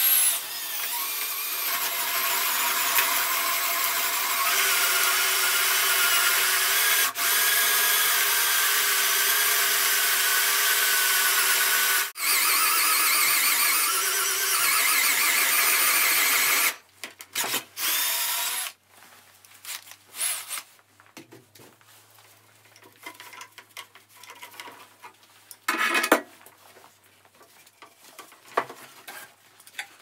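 Bosch 18 V cordless drill spinning a hole saw through a wooden board, a steady drilling whine with the cutting noise, dropping out for a moment about twelve seconds in. It stops after about seventeen seconds with a few short bursts, followed by quieter knocks of wood being handled and one loud short knock later on.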